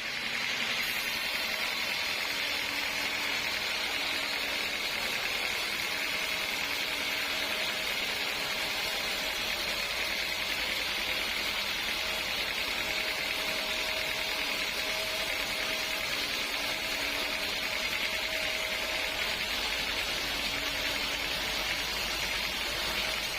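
Sawmill saw running steadily: an even, hissing machine noise with a faint steady hum underneath and no breaks.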